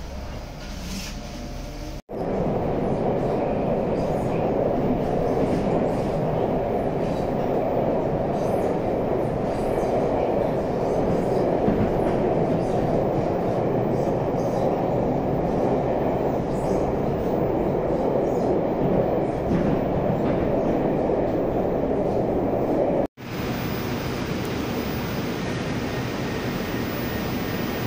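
Moskva-2020 metro train heard from inside the car as it runs through the tunnel: a loud, steady rumble of wheels and running gear. After a cut near the end, a quieter, even noise beside the train at the station platform.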